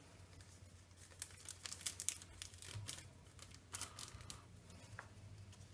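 Foil booster pack of trading cards being torn open and crinkled in the hands: faint bursts of short crackles, two clusters with a single click near the end.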